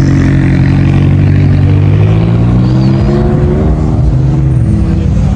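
McLaren sports car's twin-turbo V8 running loud as it drives off, its engine note held steady, then rising in pitch about halfway through before breaking up near the end.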